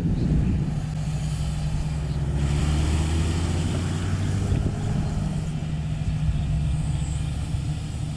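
Sany SY215C excavator's diesel engine running steadily. A hiss rises over it for a few seconds in the middle.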